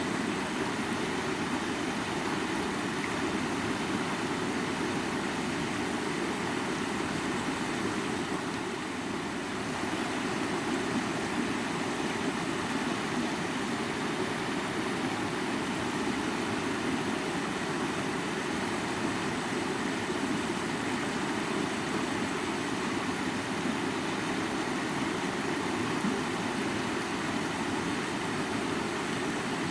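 River water flowing: a steady, continuous rush, easing slightly for a moment about eight seconds in.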